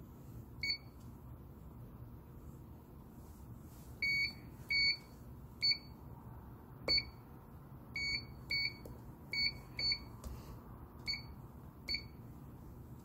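Pro-face GP2600-TC11 industrial touch panel's buzzer giving short beeps, about a dozen at uneven intervals, one for each press of an on-screen button: the touch screen is registering input.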